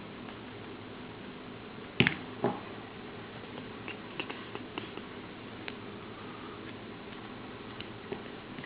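Lock pick and tension wrench working the pins of a Master Lock six-pin safety padlock during single-pin picking: two sharp metal clicks about two seconds in, then scattered light ticks as the pick works the pins.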